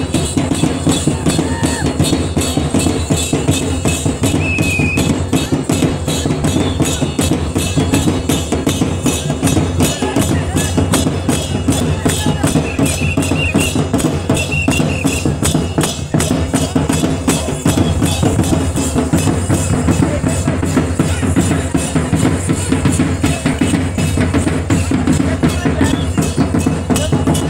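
Traditional folk music for a group dance, driven by drum and hand percussion keeping a fast, even beat, with a few short high notes from a melody instrument or voice over it.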